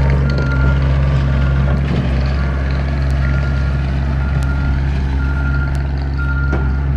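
Skid-steer loader's engine running steadily under load while its reversing alarm beeps at about one beep a second, so the machine is backing up.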